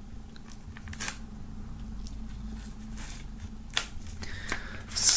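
Folding knife blade slitting the plastic shrink-wrap on a CD digipak: a few short, sharp scratches and clicks, the clearest about a second in and again about four seconds in.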